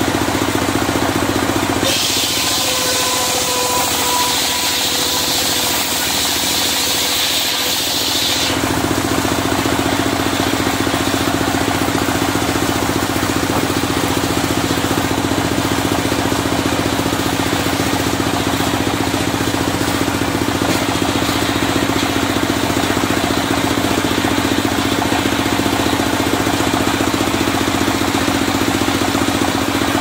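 Engine of a portable circular sawmill running steadily. About two seconds in, a cut through a sengon board adds a high hiss and a whine for about six seconds before it drops back to the engine's steady running.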